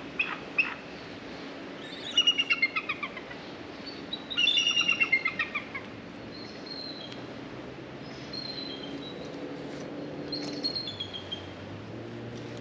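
Bald eagles calling: two rapid runs of high, thin chittering notes that fall in pitch, then several shorter single calls.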